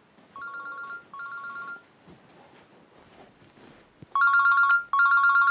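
Mobile phone ringing with a trilling two-tone ring, in pairs of short rings: two quieter rings in the first two seconds, then two much louder ones from about four seconds in, as the phone is taken out in the hand.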